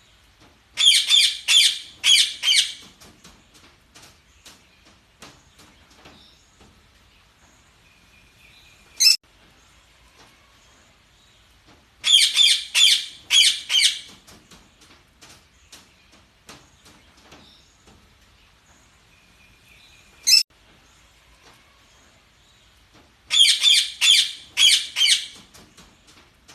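Budgerigars chirping: three loud clusters of about four quick chirps, roughly eleven seconds apart, with a single short high call between clusters and faint ticking in the gaps.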